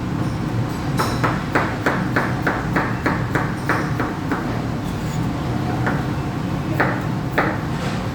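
Knife chopping potatoes into fry-shaped sticks: a quick run of about a dozen sharp chops, roughly three a second, then a pause and a few single chops.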